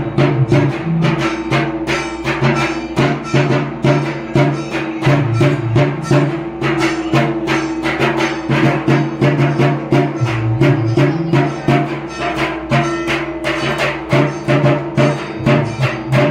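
Music with quick, evenly spaced drum strokes over a sustained melody.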